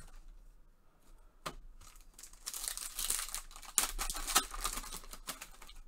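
Foil wrapper of a trading-card pack crinkling and tearing as it is ripped open by hand. It is quiet for about the first second, then comes a run of crackles with a few sharp snaps, busiest in the second half.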